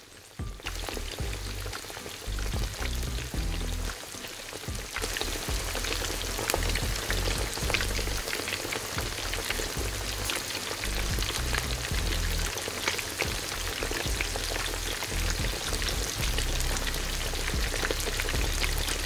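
Breaded chicken patty deep-frying in hot oil in a tiny wok: steady sizzling with many fine crackles, growing louder about five seconds in.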